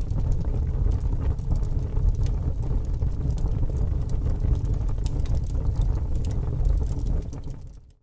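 Campfire burning: a steady low rumble with scattered crackles and pops of burning wood, fading out near the end.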